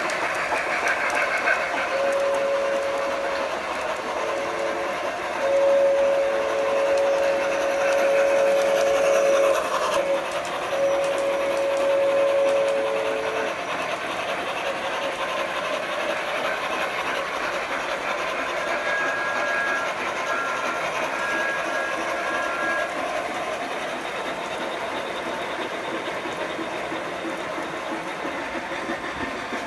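Sound-equipped large-scale model steam locomotive's whistle sounding through its onboard speaker: three long blasts in the first half, the middle one longest, then a few short, higher toots past the middle. Underneath, a steady running and rolling noise from the model trains on the track.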